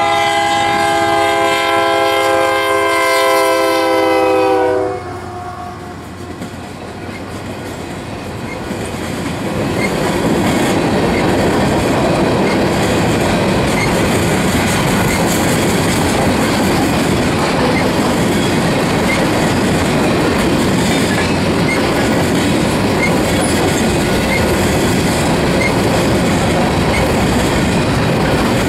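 A freight locomotive's multi-note air horn sounds a long blast as the train approaches and stops about five seconds in. The rumble then builds, and from about ten seconds in the train is going past close by: covered hopper cars rolling over the rails with the clickety-clack of their wheels.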